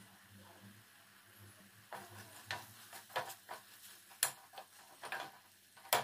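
A steel spoon scraping and clinking against a stainless steel pot as it stirs a thick masala. About two seconds in, a quick, irregular run of sharp clicks and scrapes begins.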